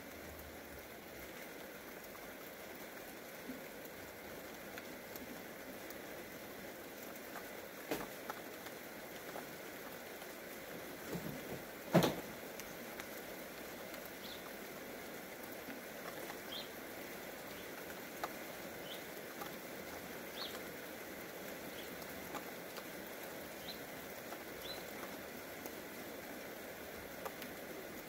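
Steady rain falling on ground and vegetation, an even soft hiss, with scattered short high chirps. A sharp click comes about eight seconds in, and a louder single knock a little before halfway is the loudest sound.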